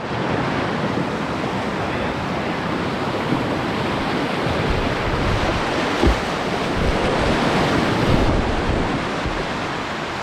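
Whitewater river rushing steadily at high flow, with wind buffeting the microphone and a low thump about six seconds in.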